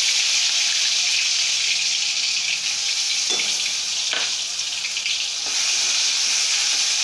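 Fresh green chilli, garlic, ginger and coriander paste sizzling loudly in hot oil with mustard seeds in a steel kadhai: the raw masala being fried off. A couple of short knocks come near the middle, and a spoon stirs it toward the end.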